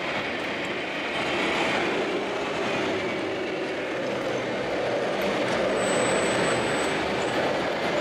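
Radio-controlled Case IH Quadtrac 600 model tractor's drive and tracks running steadily as it crawls over a soil pile, under the steady background noise of a busy exhibition hall.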